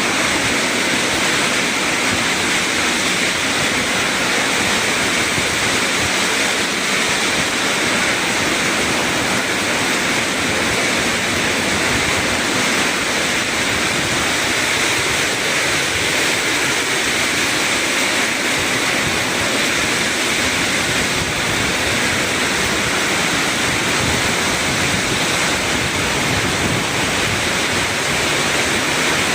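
Heavy rainstorm: a dense downpour making a steady, even hiss with no let-up.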